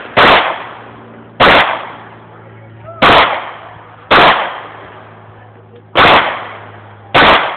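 Six pistol shots from a semi-automatic service pistol, fired in three pairs about a second apart. Each sharp crack is followed by a short fading echo.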